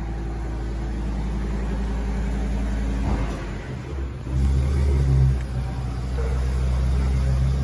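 Ambulance engine running at a steady low idle, then revving louder from about four seconds in as the ambulance pulls out of the station bay.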